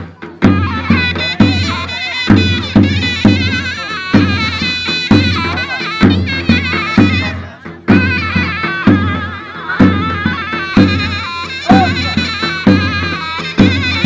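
Turkish folk dance music: a shrill reed pipe playing a fast, ornamented melody over regular bass drum strokes, with a brief break a little past halfway.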